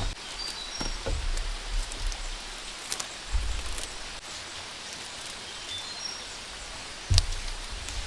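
Steady outdoor hiss of rainforest ambience with a few faint high chirps and scattered knocks, the sharpest about seven seconds in.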